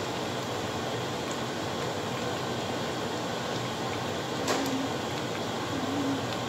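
A large pan of chicken in gravy simmering with a steady hiss while a utensil is stirred through it; the utensil clinks sharply against the pan once, about four and a half seconds in.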